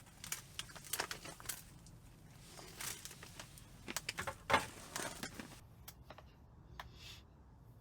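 Irregular light clicks, clinks and rustling of small objects being handled, the loudest clatter about four and a half seconds in, thinning to a few faint clicks near the end.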